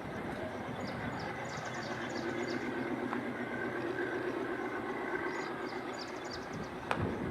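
WDG 6G diesel locomotive running with a steady low engine hum. A single sharp click comes near the end.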